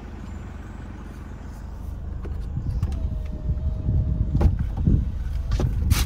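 A man getting into a Hyundai car at the driver's door, with rumbling handling noise and several sharp clicks and knocks near the end. A steady electronic tone sounds for about a second and a half just before the first loud click.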